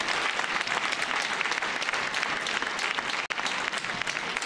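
Arena crowd applauding, a dense steady clatter of many hands clapping, with the audio dropping out for an instant about three seconds in.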